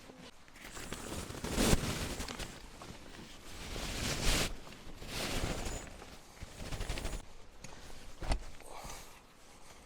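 Rooftop tent being opened: bursts of fabric rustling and handling noise, with a sharp knock late on.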